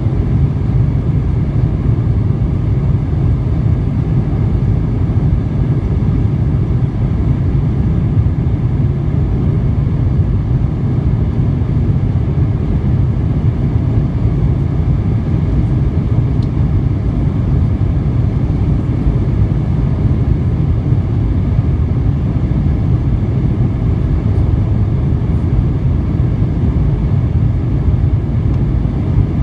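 Jet airliner cabin noise during the climb after takeoff: the engines and the rushing air make a loud, steady, low rumble, heard from inside the cabin by a window over the wing.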